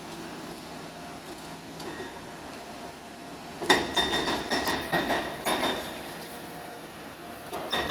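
Demolition excavator working rubble: a run of clattering, clanking knocks of concrete and metal debris with a ringing metallic edge, starting a little past halfway after a quieter stretch and starting again near the end.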